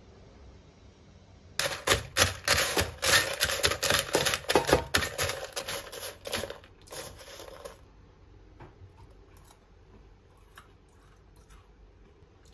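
Spoon stirring toasted granola in a parchment-lined air fryer basket: dry, crunchy clusters scraping and crackling against the paper liner. It starts about a second and a half in, runs for about six seconds, then dies down to a few light taps and rattles.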